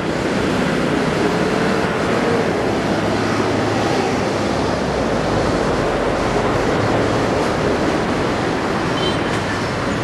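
Steady, loud engine rumble with no pauses or breaks.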